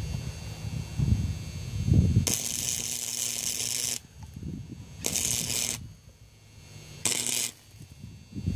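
Electric arc welding on a cast-iron bracket in short runs: three bursts of crackling hiss from the arc, the first about a second and a half long and the others shorter, each with a faint steady hum and cutting off sharply between runs. Before the first run there are low knocks and handling noise.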